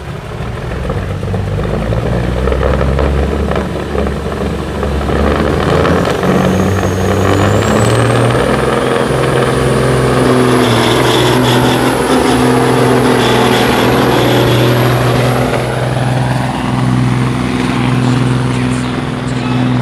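Semi-truck diesel engine at full throttle, loud and steady, while it drags a weight-transfer sled in a truck pull. A high turbo whistle climbs about six seconds in and then holds over the engine.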